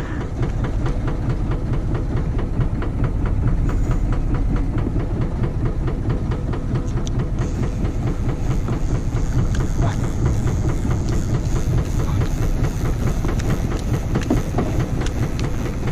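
Boat engine running steadily with a rapid, even knocking beat, and a faint hiss joining about halfway through.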